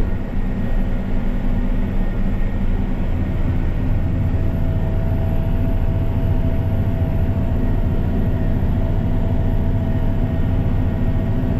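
Tractor engine running steadily under field load, heard from inside the cab as a continuous low hum. A faint steady whine joins about five seconds in.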